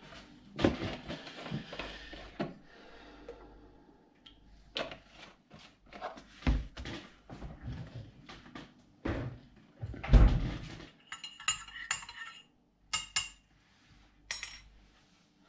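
Kitchen clatter: cutlery and crockery knocking and clinking in a run of separate knocks, with several bright, ringing metallic clinks about two-thirds of the way through.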